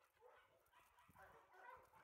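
Faint dog yips and whines: many short, high calls in quick succession. Soft thumps join in from about halfway.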